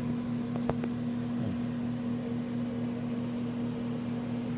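Refrigerator condenser fan motor running with a steady electrical hum, with one sharp click about a second in. The compressor is not starting, which the owner blames on the start relay.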